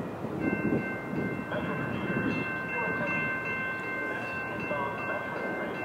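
Distant horn of an approaching Metra F40PH-3 diesel locomotive held in a long steady blast of several high notes together, over a low rumble of the train and background noise.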